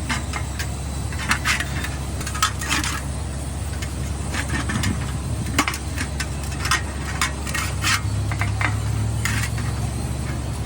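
Metal tools and parts clinking, tapping and scraping against each other in irregular short knocks, over a steady low machine hum.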